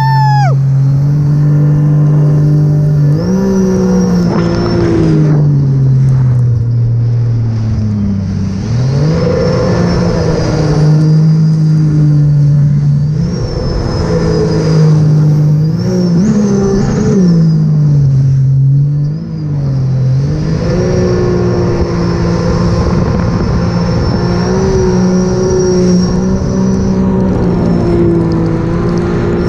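Supercharged Rotax 1630 ACE three-cylinder engine of a 2018 Sea-Doo RXP-X 300 jet ski running hard, its pitch rising and falling again and again with throttle changes through the turns, with a high whine that follows the engine speed. Rushing wind and water spray run underneath.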